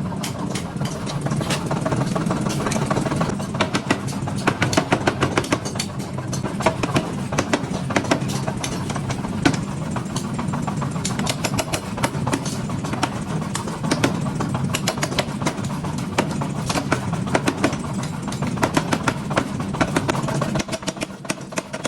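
Hammer striking hot steel: many sharp strikes, several a second in irregular runs, over a steady low machine hum.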